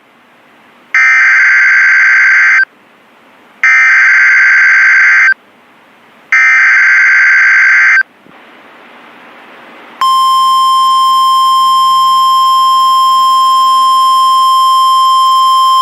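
Emergency Alert System SAME header: three identical bursts of warbling data tones, each just under two seconds, then about ten seconds in a steady single-pitch attention tone near 1 kHz, the weather-radio alert tone that opens a new flood warning.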